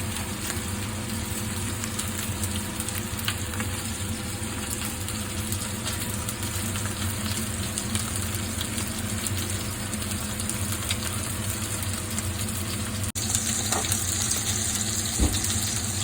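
A pot of salted water at a rolling boil with spaghetti cooking in it, a steady bubbling hiss. About 13 seconds in it cuts out for an instant and comes back with more hiss.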